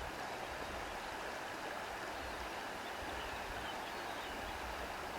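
Wind blowing through grass: a steady, even hiss.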